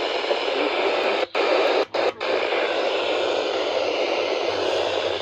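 Radio static: a steady hiss from a radio receiver with no broadcast audio on it, cutting out briefly three times around one to two seconds in.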